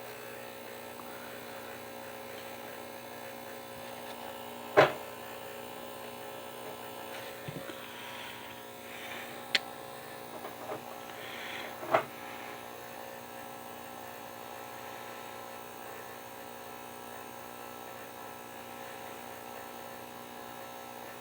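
Steady electrical mains hum with a few small sharp clicks and faint scrapes of work on a wristwatch as its dial is worked off the movement; the loudest clicks come about five and twelve seconds in.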